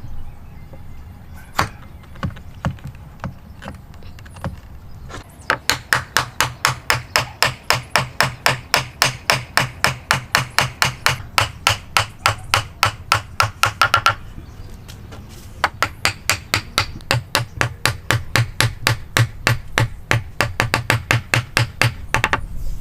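Hammer blows in hand woodworking: a few single knocks, then two long runs of quick, even strikes at about four a second with a pause of about a second and a half between them.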